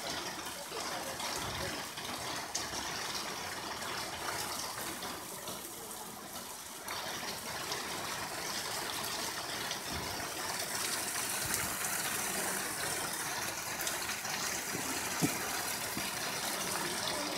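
Water from a mountain stream running over rocks, a steady rushing hiss.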